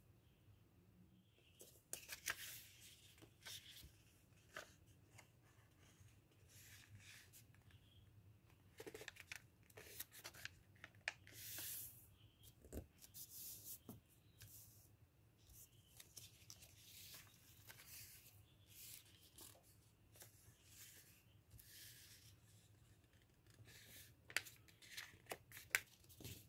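A sheet of lined notebook paper being folded by hand on a wooden table: irregular rustling and crinkling as it is lifted, turned and its creases pressed flat, with a few sharp ticks among them.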